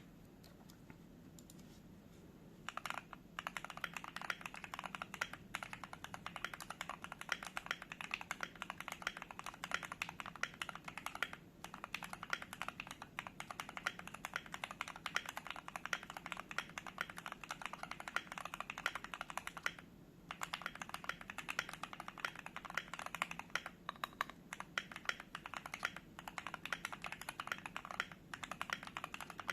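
Typing on a Keychron Q3 mechanical keyboard fitted with lubed and filmed Gateron Oil King linear switches: fast, continuous keystrokes starting about three seconds in, with a short pause about two-thirds of the way through.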